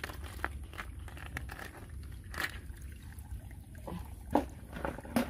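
Hands rummaging in shallow muddy water, with small splashes, trickling and scattered clicks as snail shells are picked out. A few louder knocks come near the end, over a steady low rumble.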